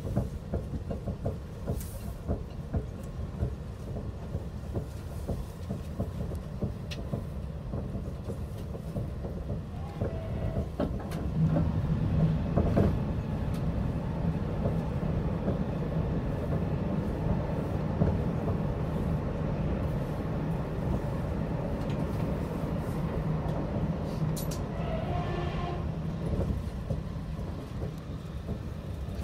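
Steady low rumble of a moving public-transport vehicle heard from inside its passenger cabin, with a low hum setting in about a third of the way through.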